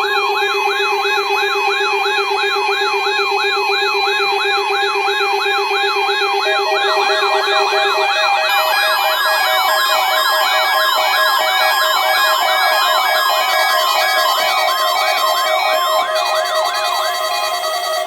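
Electronic alert alarm: several synthesized yelp-style siren tones sweeping rapidly up and down, about three times a second, layered over steady alert tones. More siren and tone layers join about seven seconds in and again near the end. It serves as the attention signal of an Emergency Alert System weekly test.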